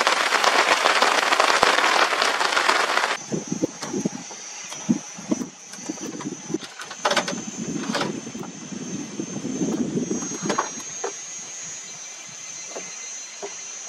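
Heavy rain hissing steadily for about three seconds, then an abrupt cut to a quieter forest. There a steady high insect drone runs under scattered knocks and rustling.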